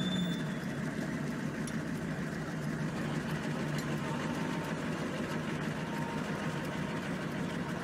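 4x4 competition vehicle's engine idling steadily while stationary, heard from inside the cab.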